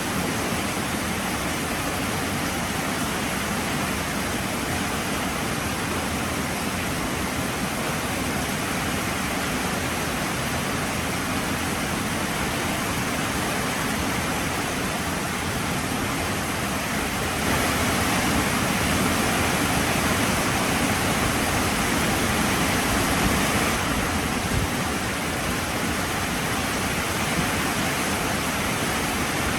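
Heavy rain falling in a steady, even hiss. It turns louder for several seconds past the middle, then settles back.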